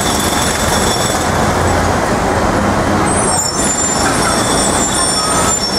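Loud city street traffic with heavy vehicles such as trucks or buses running by, a steady rumble and hiss. A thin high whine comes in about three seconds in.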